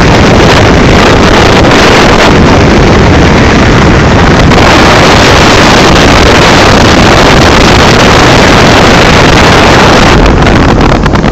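Heavy wind buffeting on the microphone of a camera on a moving motorcycle: a loud, steady rush of noise that stays level throughout.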